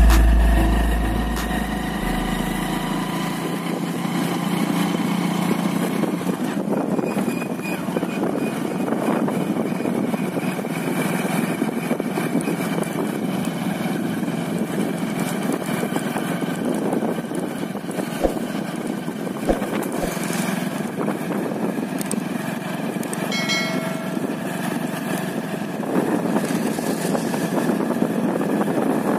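Motorcycle engine running steadily while riding, under a constant rushing noise. A deep low sound fades out over the first few seconds, and a short beep sounds about three-quarters of the way through.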